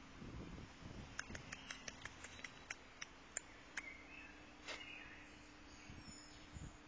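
A faint run of small, sharp clicks and ticks, about a dozen spread unevenly over three seconds and one more a little later, over a low steady hum.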